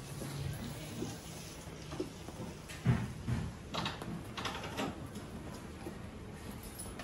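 Several short knocks and clacks bunched around the middle, the loudest a little under halfway through, over a quiet steady background.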